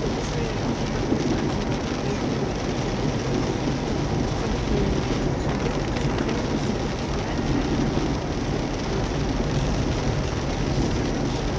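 Heavy rain drumming on a car's roof and windshield, heard from inside the cabin, with tyres hissing through standing water on the road: a steady, dense wash of noise.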